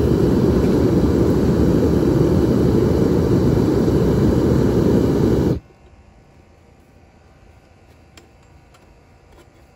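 Propane-fired Devil Forge melting furnace burner running with a steady, loud rush of flame, which cuts off suddenly about five and a half seconds in. After that only a faint background with a few light clicks remains.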